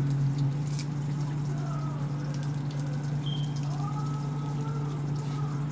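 Steady low machine hum of restaurant equipment, with burger wrapping paper crinkling briefly a few times as it is handled.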